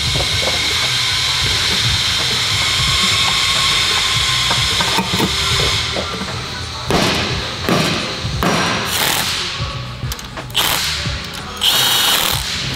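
Metal knocks and clanks as the cast aluminium transmission case is handled and set in place, then a cordless drill-driver spinning a bolt in briefly near the end, over background music.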